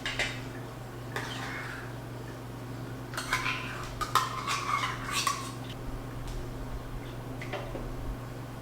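A metal utensil clinking and scraping against the stainless steel inner pot of an Instant Pot holding warming milk, in a few short spells, busiest a little past halfway, over a steady low hum.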